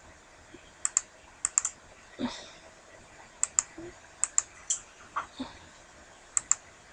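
Computer clicks from working the editing software: sharp, short clicks, most in quick pairs, about half a dozen pairs spaced unevenly.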